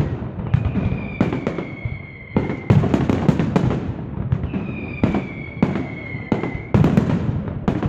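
Fireworks display: aerial shells and firecrackers going off in a rapid series of sharp bangs, several a second at times, over a constant crackle. Long high whistles, each falling slightly in pitch, sound between the bangs.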